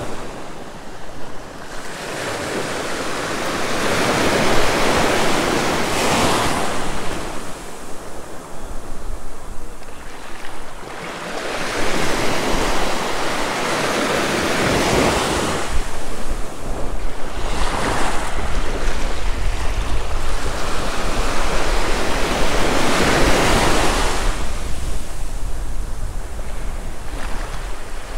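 Small ocean waves breaking and washing up the beach, the surf noise swelling and ebbing every few seconds. Wind rumbles on the microphone, more in the second half.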